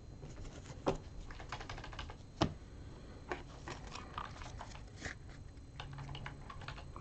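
Sports trading cards being handled and squared up on a table: a scatter of light clicks and taps of card edges, with two sharper taps about one and two and a half seconds in.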